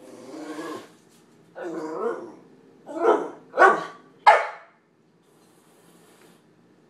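Puppy barking: five barks in quick succession, the first two longer, the last three short and loudest, then it stops about halfway through.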